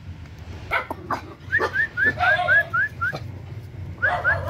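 Young Vietnamese native hunting dogs (chó săn ta) whimpering: quick runs of short, high squeaks that rise in pitch, about seven a second. One run comes midway and another starts near the end.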